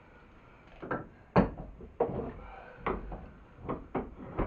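Irregular knocks and clunks of wooden vise parts being handled and fitted together, about seven in all, the loudest about a second and a half in.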